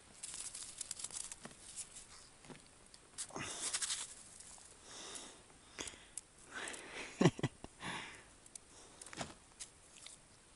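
Hands working in snow and ice slush at an ice-fishing hole: scattered quiet crunches, rustles and soft clicks.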